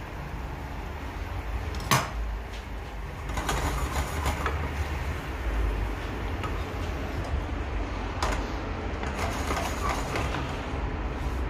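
Kitchen cooking sounds: a utensil knocking sharply against cookware about two seconds in, then bouts of clattering and scraping, over a steady low hum.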